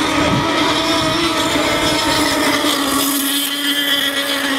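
Radio-controlled racing hydroplane running flat out, its motor giving a steady high-pitched buzz; the low rumble under it drops away about three seconds in.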